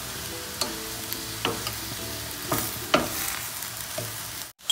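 Wooden spatula stirring and scraping vegetables and soya chunks around a stainless steel frying pan, with a steady sizzle of frying underneath: the ginger-garlic-green chilli paste frying with the vegetables. A scrape or knock against the pan comes about once a second, and the sound drops out briefly near the end.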